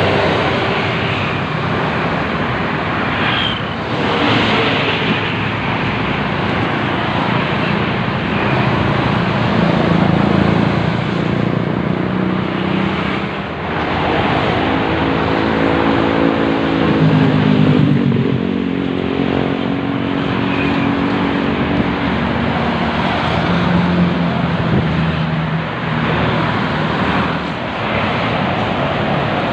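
Coach buses and cars passing at speed on a toll road: a continuous rush of tyres and engines. In the middle a bus engine's note stands out, shifting in pitch as it goes by.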